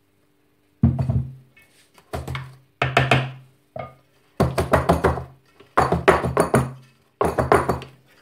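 A round metal cake tin full of batter being jiggled and knocked against a wooden board, in about seven irregular bursts of quick, heavy thuds starting about a second in, settling the batter level.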